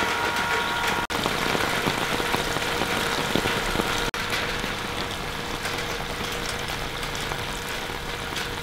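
Steady rain falling on metal gutters and grass, with a steady engine hum underneath from a petrol generator running to help the pumps and charge the batteries.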